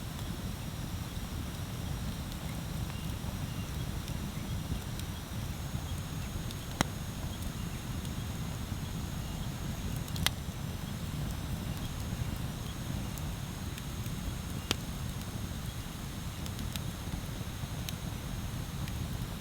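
Wood bonfire crackling, with a few sharp pops (three stand out, about 7, 10 and 15 seconds in) over a steady low rumble.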